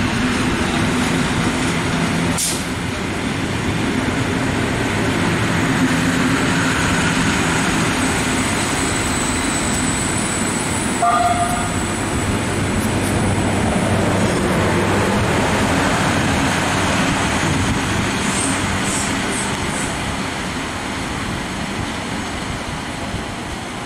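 ETR 252 'Arlecchino' electric train running past as it departs, its wheels and running gear giving a steady rumble that eases as the rear of the train draws away near the end. A short tone sounds once about eleven seconds in.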